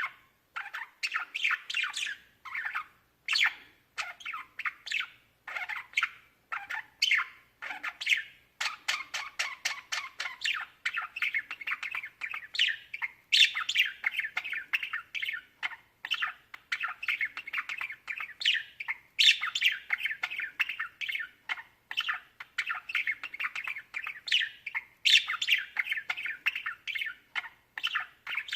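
Budgerigars chattering and squawking: a dense, unbroken stream of quick chirps with sharper calls every few seconds.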